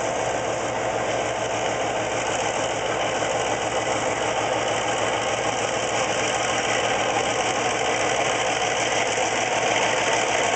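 Diesel locomotive engine running steadily with a fine even throb as the locomotive hauls its train slowly toward the crossing, growing slightly louder as it draws near.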